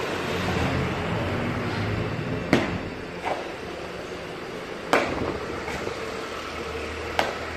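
Three sharp impacts, about two and a half seconds apart, from a Baji Quan practitioner working through bracing-palm form moves on a concrete floor, over a steady low background rumble.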